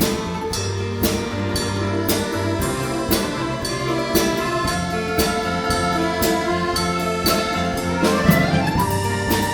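A folk-instrument ensemble playing a lively instrumental tune live. Sustained melody lines run over a steady beat of about two strokes a second, with a rising slide near the end.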